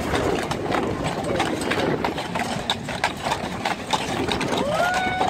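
Team of Clydesdale draft horses walking on pavement: a steady, irregular clatter of many hoofbeats mixed with the jingle of harness and trace chains.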